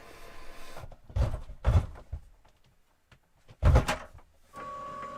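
Three dull thumps, the last the loudest, like a door or cupboard being shut. Near the end a steady hum starts.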